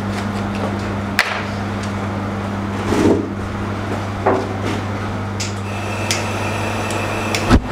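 Kitchen handling noises: a few sharp knocks and one duller clunk from raw lamb being worked on a cutting board and a large aluminium pot being handled on a gas stove, over a steady low hum. A thin high tone sounds for the last two seconds.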